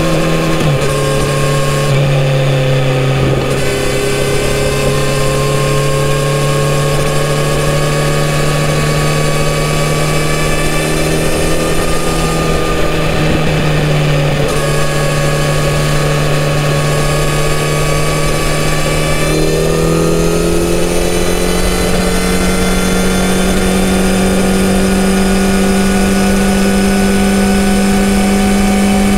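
Kawasaki Z900RS inline-four on its stock exhaust, running at cruising speed. The engine note drops about a second in as it shifts up, then climbs slowly and steadily as the bike gathers speed.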